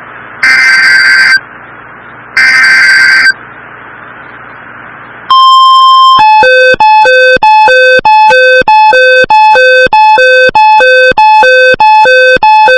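Start of an Emergency Alert System activation: two one-second bursts of SAME header data tones over steady static hiss, then a short steady beep, then a loud two-tone alert signal whose low and higher tones alternate about twice a second.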